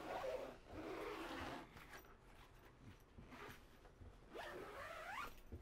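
Zipper being drawn along a canvas window panel in a pop-up camper roof to close it, in two zipping runs: one about a second in and a second near the end that rises in pitch.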